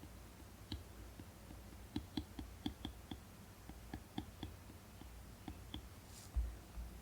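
Faint, irregular clicks of a stylus tip tapping and striking on an iPad screen as pen strokes are drawn, about a dozen in quick succession. A soft low thump comes near the end.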